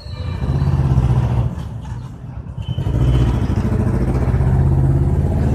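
A motor vehicle's engine running close by, a low rumble that swells twice.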